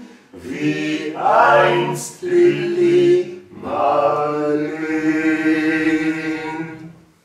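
Male vocal trio singing a cappella in harmony: the closing phrase of the song, with the final chord held and fading out near the end.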